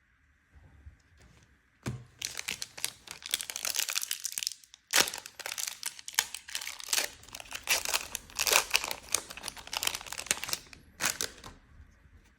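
A Magic: The Gathering collector booster pack's foil wrapper crinkling as it is torn open and crumpled, starting about two seconds in and going on for most of the rest.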